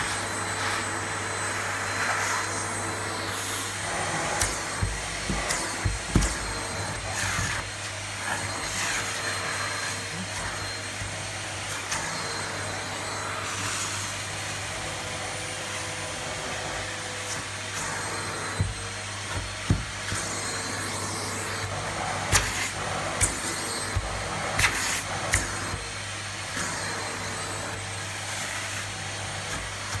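Vacuum cleaner running steadily with a hum and a thin high whine, its hose nozzle working over a quilt and sofa cushions. Short sharp knocks and clicks come in scattered clusters.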